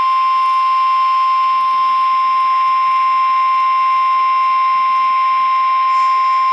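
NOAA Weather Radio 1050 Hz warning alarm tone: one loud, steady, unbroken beep held at a single pitch, the attention signal that comes before a weather warning message.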